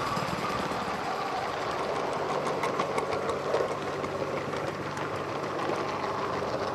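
Coaches of a model steam train rolling past on the track, with a steady rumble and many sharp wheel clicks.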